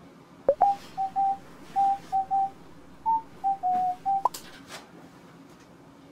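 A short tune of about a dozen clear, pure single notes, a quick upward slide opening and closing the run. It lasts about four seconds, and a few faint rustles follow it.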